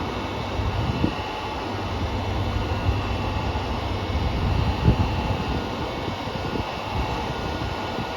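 KiHa 200 diesel railcar standing with its engines idling, a steady low hum under a noisy mechanical drone with a few light knocks. Mixed in is the abnormal noise from car KiHa 200-1551, a fault that took the unit out of service the next day.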